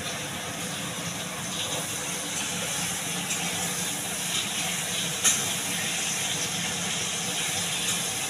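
Steady rain, an even hiss, with a brief click about five seconds in.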